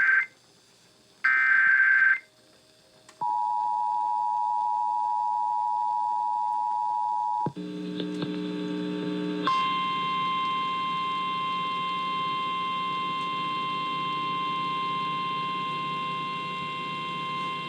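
Emergency Alert System tones: the last two SAME digital header bursts, each a second-long screech a second apart, then the two-tone EAS attention signal for about four seconds. After a low buzz, about nine and a half seconds in, the NOAA Weather Radio single-tone warning alarm sounds steadily over a buzz until near the end.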